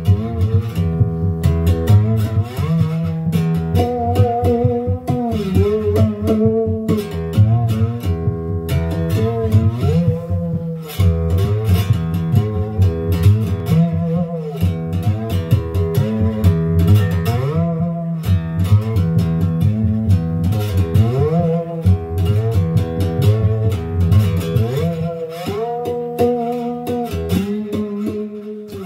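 Homemade one-string electric diddley bow played with a slide: plucked notes that glide up and down between pitches, with a steady low part beneath.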